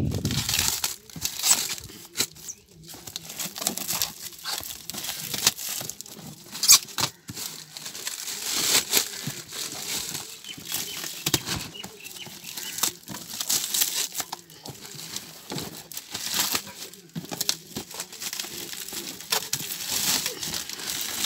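Clear plastic wrap crinkling and rustling in irregular handfuls as it is pulled off a cardboard box.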